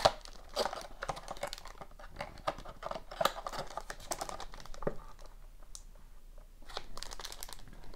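Foil wrapper of a sealed hockey card pack crinkling and crackling in the hands as it is handled, with the cardboard box being handled alongside it: irregular small crackles and clicks, easing off briefly past the middle.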